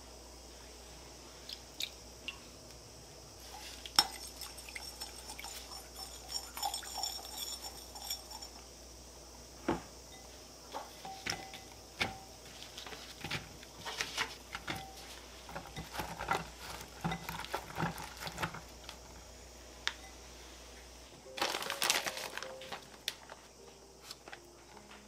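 Small clinks, taps and wet handling against a glass mixing bowl as okra pods are laid into a little men-tsuyu and turned by hand. There is a sharp tap about four seconds in, followed by a faint high ringing, and a busier stretch of mixing a little after twenty seconds.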